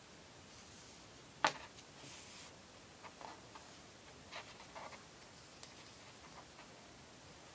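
Faint, scattered rustles and small clicks of fingers handling and pulling knotting cords, with one sharper click about a second and a half in.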